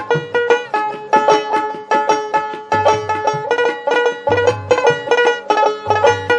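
Background music: a quick, plucked-string melody, banjo-like, over a low bass note that comes back about every second and a half.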